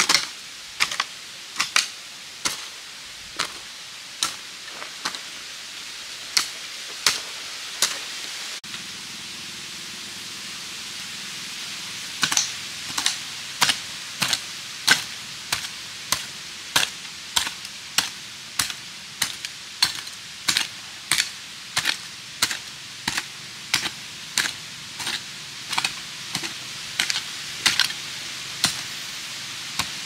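Repeated sharp knocks of hand-tool work, about one to two a second, with a break of a few seconds about a third of the way in.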